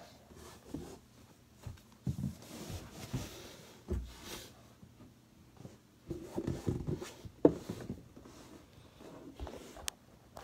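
Muffled bumps, knocks and rustling as a child clambers into a bed drawer with the recording phone covered. Scattered thumps, the sharpest about seven and a half seconds in.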